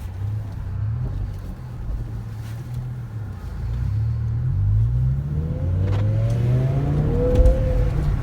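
BMW E60 M5's V10 engine running with its mufflers deleted, accelerating under load. The engine note climbs in pitch several times, getting louder over the last few seconds.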